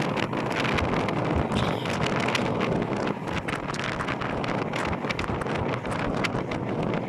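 Wind buffeting the microphone, a steady rushing noise with many small crackles and rustles through it.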